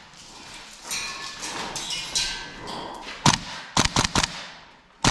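Airsoft gun shots: a single sharp crack about three seconds in, then a quick string of four or so, and one more at the end, after a stretch of rustling noise.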